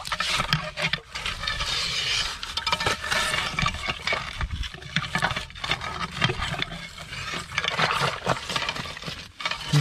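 A hand scraping and digging through wet gravel, sand and shell grit under a rock: a dense, uneven crackle of small stones grating and clinking.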